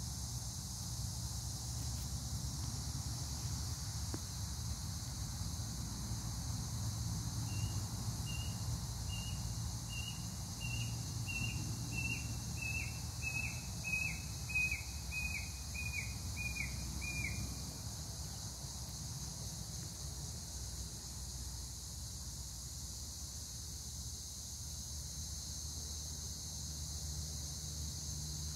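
Garden ambience: a steady high-pitched insect drone over a low rumble. Through the middle a bird calls a run of about fourteen short notes, roughly one and a half a second, each dropping in pitch, the drop growing sharper toward the end of the run.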